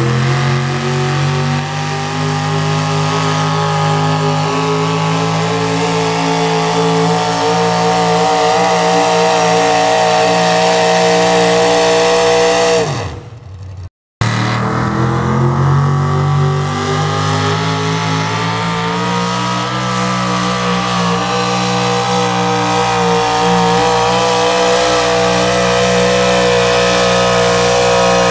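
Small-block V8 pickup trucks pulling a weight-transfer sled, each engine held at high revs under full load. About 13 seconds in, the first engine's note falls away sharply as it comes off the throttle. After a brief break a second pull runs at high revs and falls off at the end.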